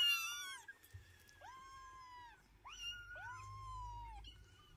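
Kittens meowing: a high mew at the start, then three more calls about a second in and around three seconds in, each rising and falling in pitch, the last one drawn out. The kittens are protesting at their mother cat.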